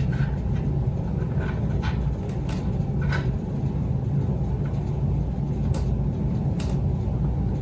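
Steady low hum with a few faint, scattered clicks and taps from handling the flat display cable and its connector.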